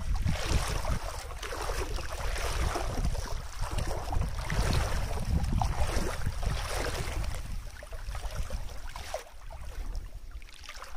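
Wind buffeting the microphone: a low rumble with an uneven hiss over it, dropping somewhat in the last few seconds.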